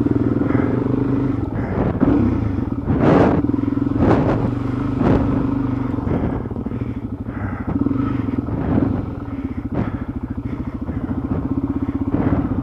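Dual-sport motorcycle engine running at a fairly steady low speed while riding a muddy trail, with a few sharp knocks and clatters over it.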